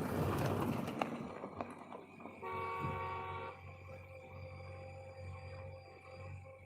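A vehicle horn sounds one steady blast of about a second, a couple of seconds in, over a low steady hum. It follows a louder rushing noise in the first second.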